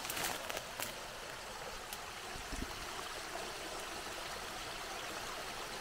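Water rushing steadily over and through a beaver dam that holds back more than a metre of water. A few faint clicks sound in the first second.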